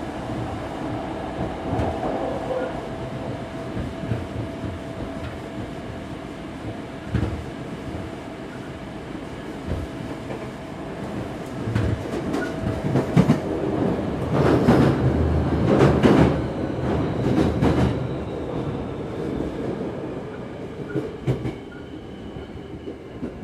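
Hankyu 5300 series commuter train running along the line, heard from inside the car: a steady rumble of wheels and motors, with a louder stretch of wheel clatter over the track about halfway through.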